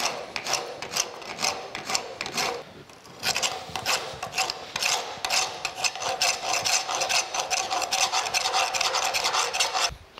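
A horseshoer's rasp filing soft, freshly poured babbitt bearing metal in quick back-and-forth strokes, about three a second, trimming the new bearing down flush with its housing. The filing pauses briefly about three seconds in and stops near the end.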